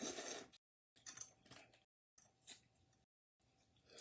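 Faint chewing and mouth sounds of someone eating spicy boiled crawfish, in four short bursts with silent gaps between them.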